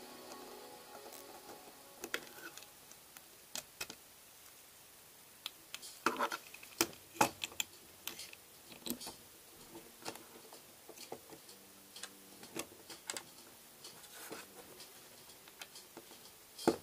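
Plastic Lego bricks being pressed together and handled: scattered sharp clicks, bunched together about six to seven seconds in.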